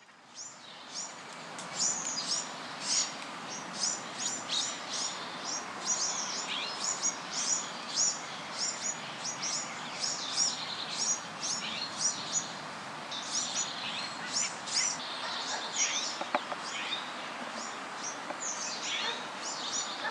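Birds chirping over a steady outdoor hiss, with short high calls repeated throughout. It fades in over the first couple of seconds.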